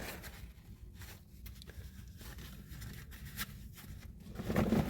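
Faint rustling and scattered light clicks of someone moving and handling things in a cramped space, over a steady low rumble, growing louder near the end.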